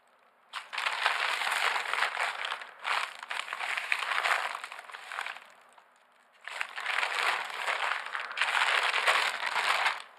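Plastic courier mailer bag crinkling as gloved hands handle it and turn it over. The crinkling comes in two long stretches with a pause of about a second roughly halfway through.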